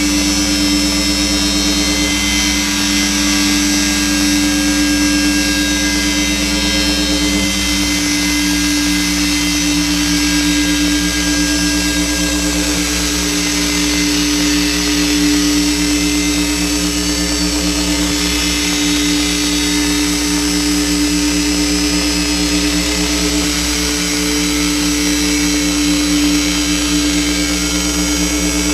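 Noise drone from a synth drone box, looped and processed through Kaoss Pad effects. A strong steady low tone sits under a dense hiss of held tones. About seven or eight seconds in, a lower tone drops slightly and turns into a fast flutter, and a short falling glide comes near the middle.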